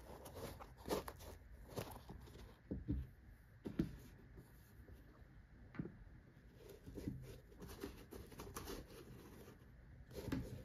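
Nike SB Chron 2 skate shoes being handled: soft rustling of the suede and laces with scattered light knocks as they are turned over and set down on a wooden tabletop.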